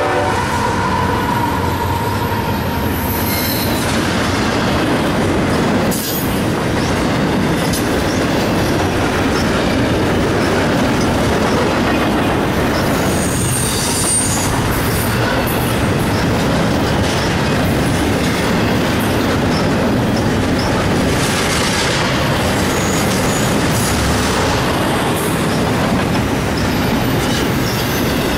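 Double-stack intermodal container train rolling past close by: a loud, steady rumble and clatter of steel wheels on the rails, with a brief high wheel squeal about halfway through.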